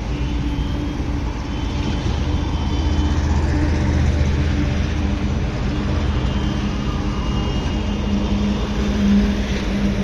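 Steady low drone of heavy construction machinery and road traffic engines running together, with one engine note swelling louder near the end.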